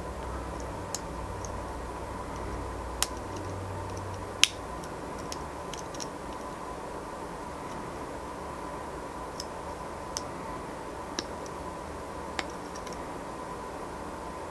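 Sparse, faint metallic ticks and clicks of a lock pick working the pins of a padlock held under tension, at irregular intervals, with two sharper clicks around three and four and a half seconds in.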